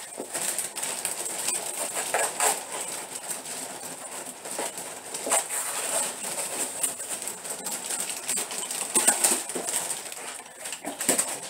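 Shopping being unloaded and handled: scattered rustling, light knocks and clinks of bags and packaged goods being carried and set down.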